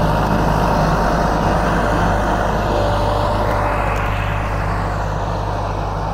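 Kubota L4708 tractor's 47-horsepower diesel engine running steadily under load while pulling a disc plough through dry soil, easing off a little in loudness over the last few seconds as it moves away.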